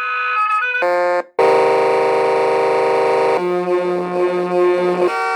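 Electronic truck-horn sound effects from an RC truck's sound module speaker: several different steady horn tones played one after another, the longest held for about two seconds, the last with a pulsing low note under it.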